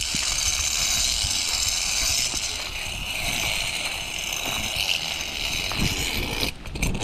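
Zip-line trolley pulleys running along a steel cable: a steady high whirring hiss over a low rumble, cutting off abruptly near the end.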